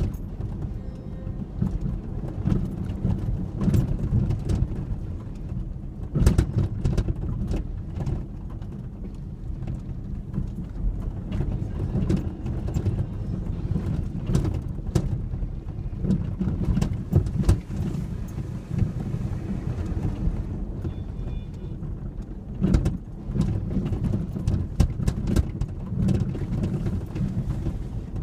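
2003 Ford Ranger 4x4 driving off-road: a steady low engine and drivetrain rumble, with frequent irregular knocks and rattles as the truck jolts over rough ground.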